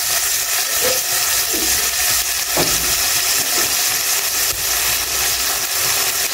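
Green seasoning paste sizzling in a little hot oil in a nonstick frying pan, a steady hiss as the paste starts to fry.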